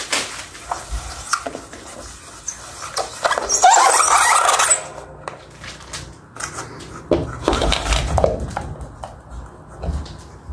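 Hand knocking and rubbing against the plastic motor housing and downrod of a KDK ceiling fan, a string of clicks and knocks. A loud whine with a wavering pitch comes about three and a half seconds in and lasts over a second.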